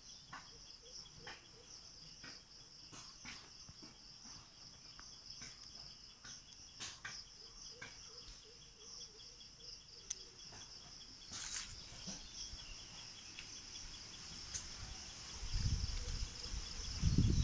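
Crickets trilling steadily at a high pitch, with scattered faint clicks. Near the end a loud low rumble comes up on the microphone.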